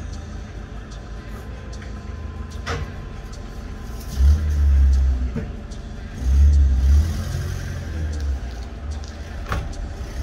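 A van's engine running, revving up twice, about four seconds in and again around six seconds, as the van moves off. A door slams shut a few seconds before the first rev.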